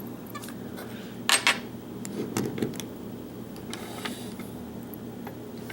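Small metallic clicks and taps from handling the parts of a disassembled pin-tumbler lock, with one louder click about a second and a half in, over a faint steady hum.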